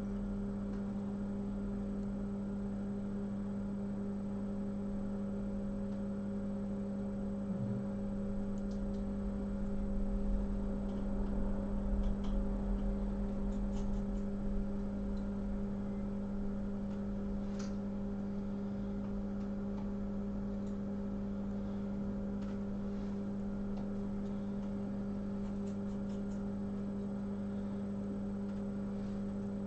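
Steady electrical hum from the powered repair-bench equipment, with a few faint ticks of a small tool scraping epoxy underfill off a phone's home button flex.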